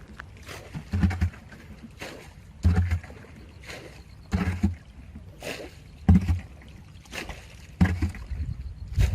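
Rhythmic splashing and sloshing of water, a low thud with a splash about every second and a half, the last one, near the end, the strongest.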